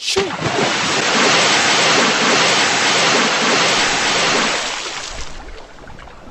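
Cartoon whale's sneeze: a sudden, loud rush of noise that bursts out all at once, holds for about four seconds and then fades away over the last two.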